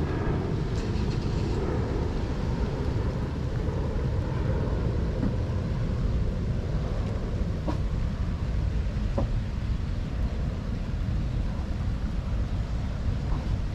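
Steady low rumble of wind buffeting a phone microphone outdoors, with a couple of faint clicks partway through.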